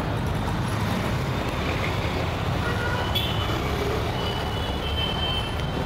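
Steady road traffic noise: vehicle engines running along a busy city street, with a few faint high-pitched tones in the second half.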